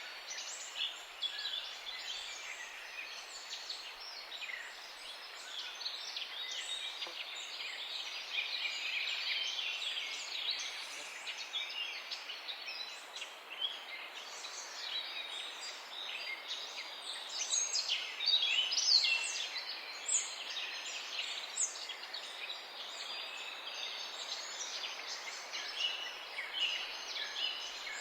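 Morning chorus of many songbirds chirping and trilling at once, a dense overlapping chatter of short high notes over a steady outdoor hiss.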